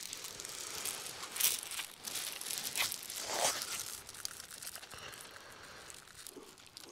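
Shingle pebbles crunching and clattering under hands and knees as they shift, with a few louder crunches in the first half.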